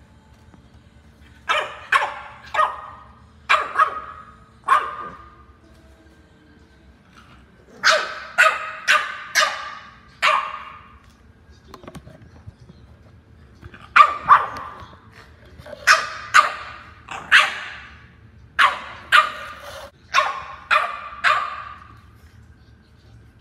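French bulldog barking in three bouts of quick, sharp barks, with pauses of a few seconds between bouts.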